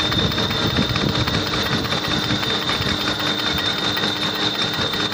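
Metal lathe running with a borewell pump shaft and its new steel sleeve (bush) chucked in it: a steady mechanical running sound with a constant high whine.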